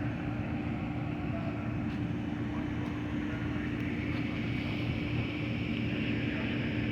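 Amtrak passenger train's diesel locomotive running with a steady low drone and a constant hum.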